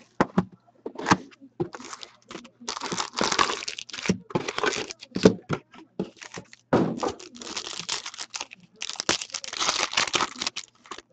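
Plastic shrink wrap crinkling and tearing as a sealed hockey card box is unwrapped, then foil card packs rustling as they are laid out and one is torn open: irregular crackly bursts with short pauses.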